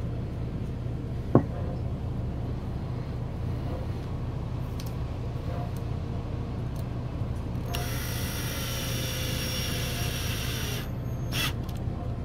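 Small cordless electric screwdriver driving hex screws into an RC crawler chassis. There is a sharp click about a second in, then the driver's motor whirs with a thin whine over the last few seconds, broken briefly by a few clicks, over a steady low hum.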